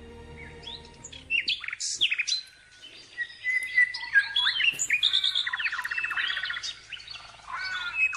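Several birds chirping and singing at once: quick sweeping calls and a rapid trill, with a faint low hum underneath in the first second or so.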